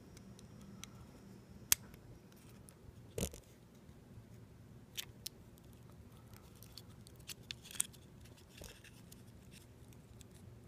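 Faint, scattered clicks and taps of fingers working a tiny battery connector and a super capacitor into a small plastic dashcam case. One sharp click comes just under two seconds in, and a duller knock about a second later.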